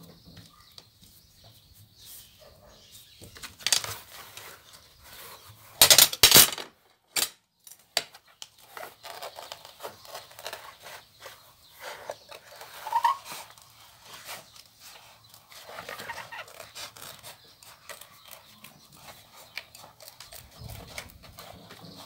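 Scissors snipping and cutting around a circle in a sheet of EVA foam, with the foam sheet rustling and bending as it is handled. A few loud, sharp bursts stand out about four and six seconds in.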